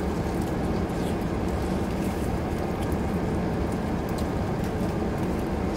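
Steady low rumble of a car idling, heard inside the cabin, with a few faint ticks over it.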